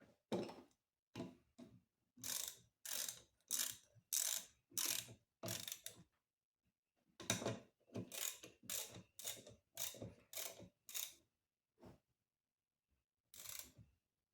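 A hand tool working a small engine part in short, evenly paced strokes, about two a second. It runs in two bursts with a short pause between, then two more single strokes near the end.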